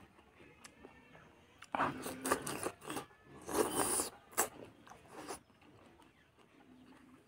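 Close-miked mouth eating sounds: wet chewing and crunching in two spells, about two and four seconds in, then a few lighter smacks.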